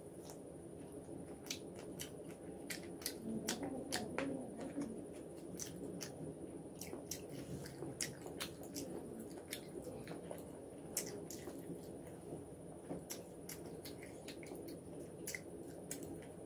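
Close-miked chewing of a mouthful of fried rice and chicken: soft wet squishing with many small sharp mouth clicks scattered through it.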